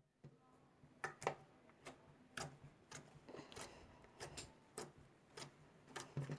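Slime being worked by hand, giving sharp, irregular clicks and pops about two a second.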